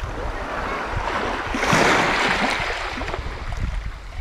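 A small sea wave washing in over the shallows, swelling to a hiss at its loudest about two seconds in and then fading, over a steady low rumble of wind on the microphone.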